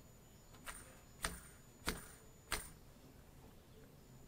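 Four sharp little clicks, about two-thirds of a second apart, from a small white plastic clutch part and its brass ring being handled and fitted together.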